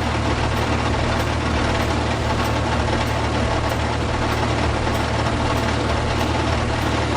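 Heavy truck engine sound effect running steadily with a low, even rumble.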